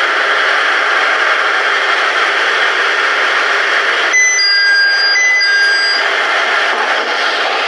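Steady noise inside a JR East 701 series or KiHa 100/110 series railcar, then about four seconds in a short electronic chime: a few clear beeps at two or three pitches lasting about two seconds, typical of the train's door chime.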